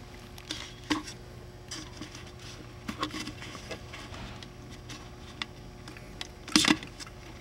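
Handling noises from a plastic bottle and its wires: scattered clicks, taps and small knocks as leads are pulled through the seal plugs and the cell is fitted into the neck. A louder double knock comes near the end, over a steady low hum.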